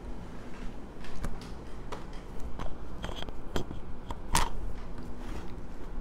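Scattered small clicks and taps, with one sharper click about four seconds in, over a faint low steady hum.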